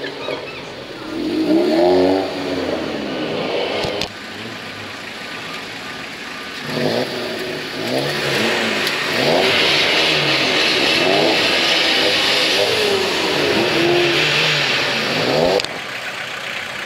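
Car engines revving hard as cars pull away, the pitch sweeping up and down again and again. A short burst of revving comes first, then a longer, louder run of repeated revs with a hiss over it, cut off suddenly near the end.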